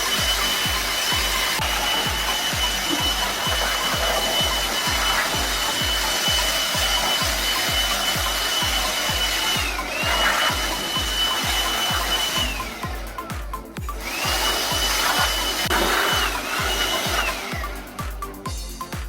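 Background music with a steady beat and a high held tone that slides down several times, over a steady hiss.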